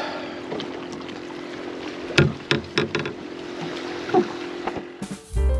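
Fishing kayak on choppy water with wind on the microphone and a steady hum, broken by a few sharp knocks and clicks of handled gear about two seconds in and again near four seconds. Piano music comes in near the end.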